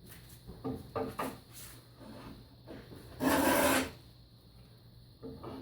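Rabbet plane shaving very dry oak: several short, light strokes, then one longer, louder stroke about three seconds in.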